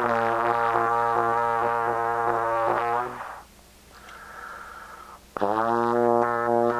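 Solo trombone holding a low, buzzy note that pulses evenly, breaking off about three seconds in. After a quiet gap with a faint higher tone, a second low note slides up into pitch and holds.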